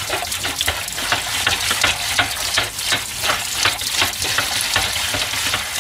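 Water running from the tap onto a fish-grill grate in a stainless steel sink while a sponge scrubs the grate in quick, repeated strokes, about two or three a second.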